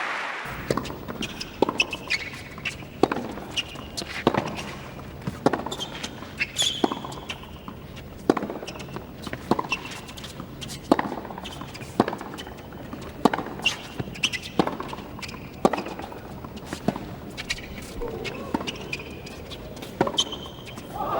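Tennis rally: sharp pops of the ball coming off racket strings, alternating with ball bounces on the court, about one impact a second, over a quiet crowd.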